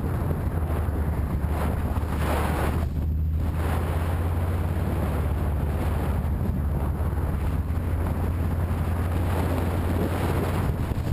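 Motorcycle engine running at a steady low drone while riding, under wind rushing over the microphone, which eases briefly about three seconds in.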